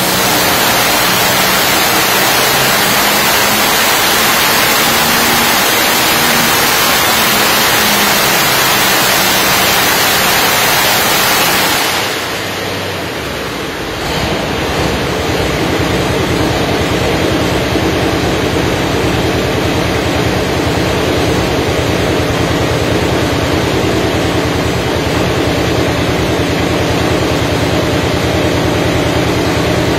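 Pulling tractor engine running hard on a hub dyno, a loud, dense, steady roar. About twelve seconds in the revs drop away, and from about fourteen seconds it settles into a lower, even-pulsed running note.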